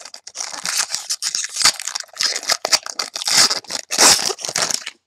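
Wrapper of a football trading-card pack being torn open and crinkled, a dense crackling that stops abruptly near the end.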